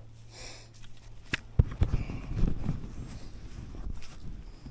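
Handling knocks and water sloshing as a caught trout is released back into the river: a sharp click a little over a second in, then a run of low thumps and rustling.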